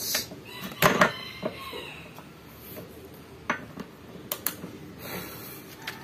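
Sharp metallic clicks and knocks as a tight cap is worked loose and lifted off a truck gearshift servo (power shifter) body, a cluster about a second in and a few single ones later.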